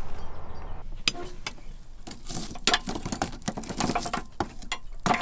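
Wood fire in a stove crackling and knocking as the burning logs are poked with a stick, sending up sparks: irregular sharp clicks and knocks, with a louder knock near the end.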